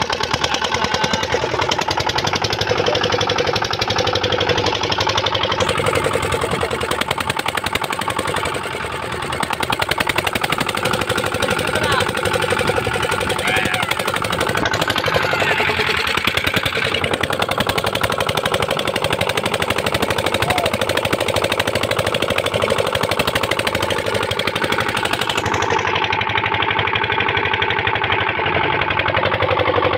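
A wooden motorboat's engine running steadily with a rapid, even knocking beat.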